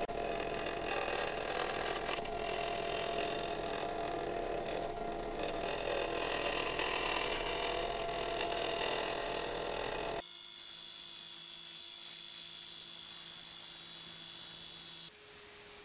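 Wood lathe spinning a bowl blank of colored pencils set in epoxy while a carbide-tipped turning tool cuts it: a steady, dense cutting noise over the motor's hum. About ten seconds in it cuts off abruptly to a quieter steady hum.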